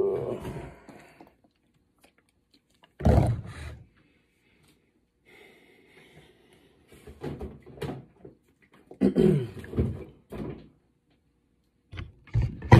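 Plastic drink bottles being handled and set down on a table: a handful of irregular knocks and thumps a second or more apart.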